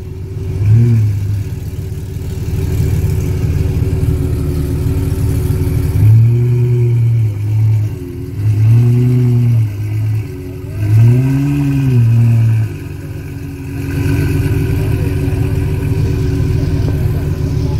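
Ferrari 812 Superfast's naturally aspirated 6.5-litre V12 through an iPE exhaust, idling and revved four times while stationary. A short blip comes about a second in, then three longer revs between about six and thirteen seconds in, each rising and falling in pitch, with the steady idle between.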